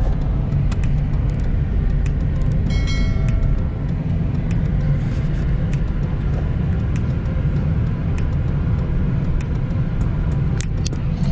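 Steady low rumble of a car's engine and tyres cruising on a highway, heard from inside the cabin. About three seconds in there is a brief high, ringing tone, and faint light clicks come and go.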